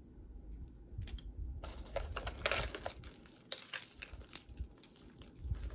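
Metal jewelry chains and clasps jingling and clicking as they are handled, starting about a second and a half in as a run of small metallic clinks.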